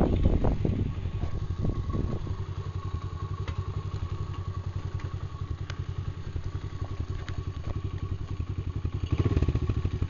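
Small Chinese dirt bike engine running under way, a steady fast putter, with some clattering in the first second. It gets louder about nine seconds in.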